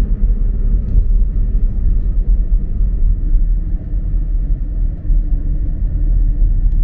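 Steady low rumble of a car driving on the road, heard from inside the cabin: engine and tyre noise.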